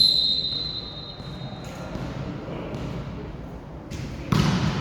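A referee's whistle blows once, a steady high tone held for about a second and a half. About four seconds in comes a short loud burst of noise.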